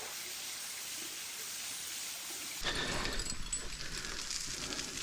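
Steady hiss of falling water from a waterfall. About halfway through it changes abruptly to a fuller, lower wash with a few faint clicks.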